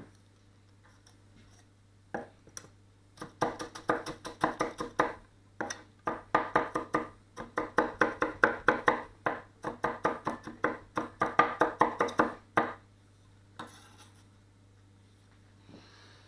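A 230mm gyuto chef's knife chopping ginger into matchsticks on a wooden board: rapid knife strikes on the wood, about six a second, in runs from about three seconds in to about twelve seconds. A couple of single cuts follow near the end.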